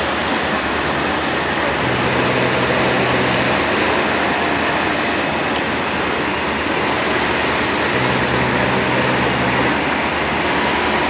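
Sewing machine running steadily with a continuous mechanical whirr, a low motor hum coming up twice for a second or two.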